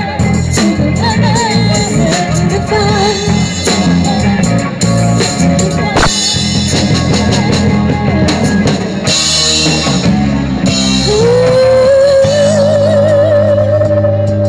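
Live rock band playing a ballad: electric guitars, bass guitar and drum kit, with a melody line over them that ends in one long held note with vibrato in the last few seconds.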